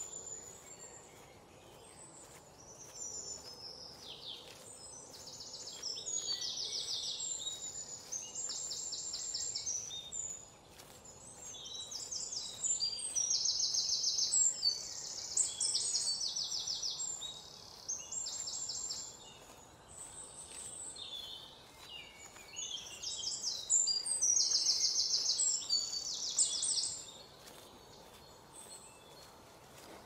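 Forest birds calling: spells of high, fast trills and chirps, each lasting one to four seconds, coming and going several times over a faint steady hiss.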